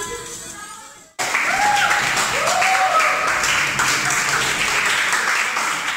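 Music fades out, and about a second in a group of people starts clapping, the applause running steadily with voices calling out over it.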